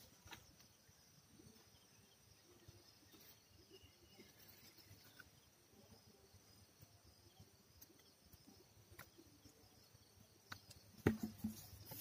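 Near silence with faint outdoor ambience and scattered soft clicks. About a second before the end come a few sharp knocks and some rustling, from handling among the coconut palm's frond bases.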